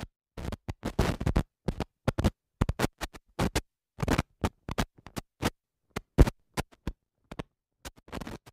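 Old-film crackle sound effect: irregular scratchy pops and short bursts of noise with silent gaps between them, the kind laid under a film-leader countdown.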